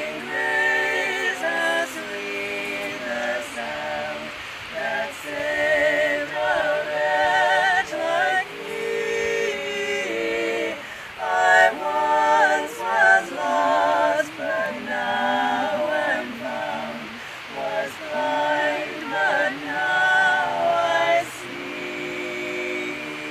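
Unaccompanied singing: long sung notes with a wide vibrato, phrase after phrase, softening to a quieter held tone near the end.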